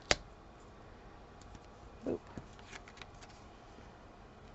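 Hands handling card stock and a paper card panel on a craft table: one sharp tap just after the start, then a few faint clicks and a short low bump about two seconds in.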